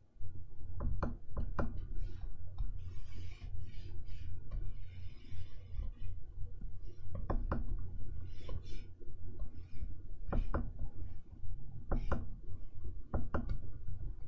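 Stylus of an XP-Pen Artist 15.6 Pro pen display tapping and stroking on the screen: light clicks in small clusters of two or three, with a soft scratching of pen strokes about three to six seconds in. A steady low rumble underlies it all.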